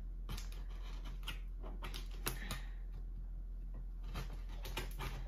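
Scissors working at the packing tape on top of a cardboard box: irregular small clicks, snips and scratches of the blades against tape and cardboard.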